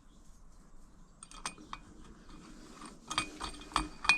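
Light metallic clicks and clinks of steel engine-mounting bolts being handled and slid through the mounts, a few taps about a second in and a quicker run of ringing clinks near the end.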